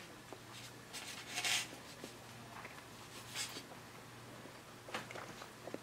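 A person chewing a bite of grilled steak, faintly, with two short soft hissing breaths and a few light clicks, over a low steady hum.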